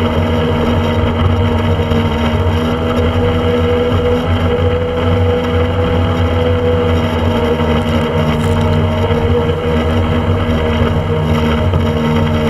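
Motorboat engine running steadily at speed while the boat is underway, its pitch holding level throughout.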